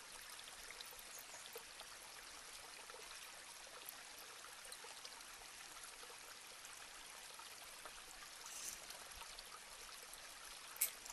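Faint steady hiss of background noise, with a soft rustle about three-quarters of the way through and a single sharp click near the end.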